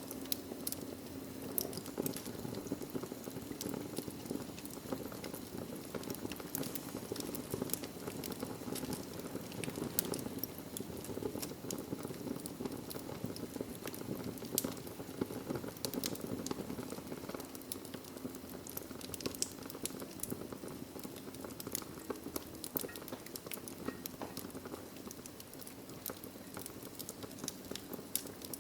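Log fire burning in a fireplace: a steady low rush of flame with frequent irregular sharp crackles and pops from the wood.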